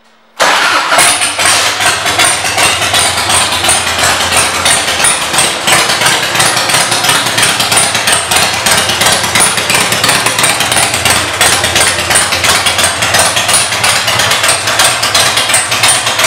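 A 2003 Harley-Davidson Dyna Super Glide's Twin Cam 88 V-twin idling through Vance & Hines aftermarket exhaust pipes. It comes in abruptly about half a second in, then runs loud and steady with an even pulsing beat.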